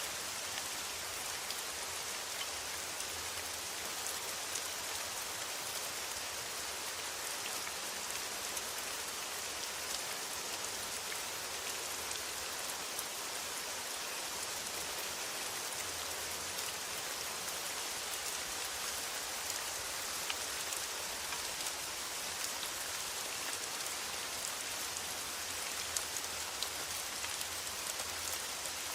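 Steady rain on a metal roof: an even hiss with many small sharp drop ticks.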